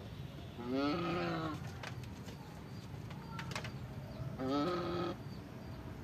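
Domestic goose calling twice: two drawn-out nasal honks about four seconds apart, each rising in pitch at the start, the first about a second long.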